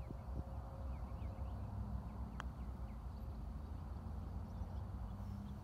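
A putter striking a golf ball once, a single sharp click about two seconds in, over a steady low rumble with birds chirping faintly.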